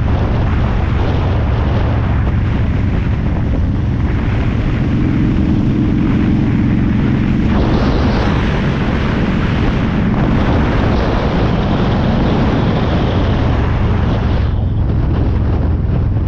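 Cruiser motorcycle engine running at road speed, with wind noise buffeting the microphone. The engine note shifts about halfway through.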